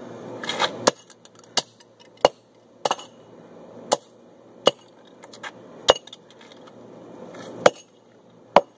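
Hammer blows on a plastic LEGO Darth Vader alarm clock being smashed: about nine sharp knocks at uneven intervals, roughly one a second, with a short scuffle of handling before the first.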